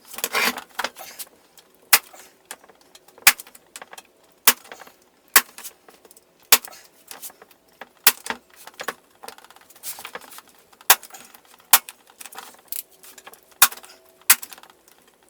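Hand stitching work at a bench: sharp taps roughly once a second, with light metallic clinking and rustling between them.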